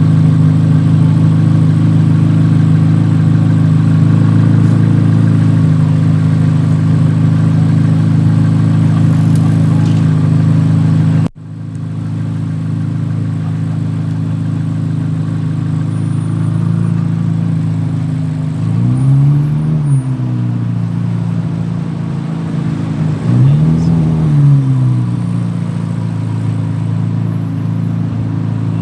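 Car engine idling steadily, with a sudden break about a third of the way in. Two quick throttle blips come later, each rising and falling back to idle, a few seconds apart.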